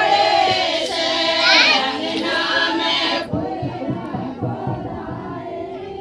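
Women's voices singing together in chorus. About three seconds in the singing drops away, leaving fainter voices and a few low knocks.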